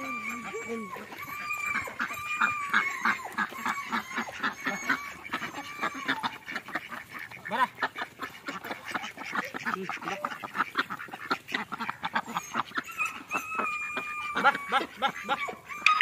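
A flock of domestic ducks quacking in quick, overlapping calls as they crowd round to be fed. A long wavering high-pitched tone runs through the first few seconds and comes back near the end.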